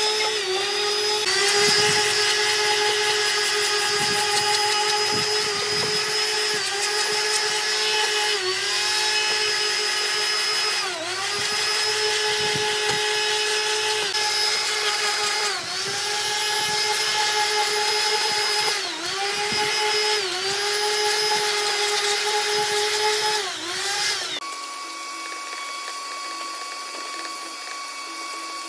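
A handheld electric power tool's motor whining at a steady high speed. Its pitch dips briefly every second or two as it is pressed into the work and loaded. About 24 seconds in it cuts off and a quieter, higher steady machine hum takes over.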